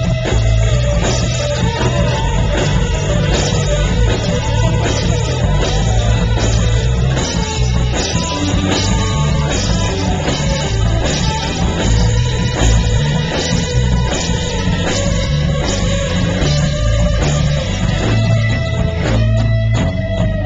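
Loud rock music with electric guitar, drum kit and singing, played at a sound check and picked up through a Flip camcorder's small built-in microphone.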